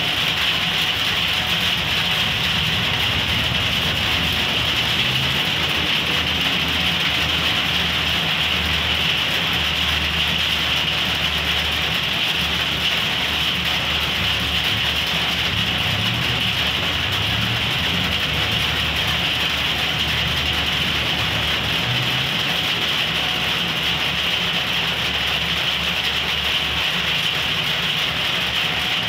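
Steady rain hiss, with the low rumble of a passenger train passing over the level crossing through the middle, and road vehicles' engines idling at the gate.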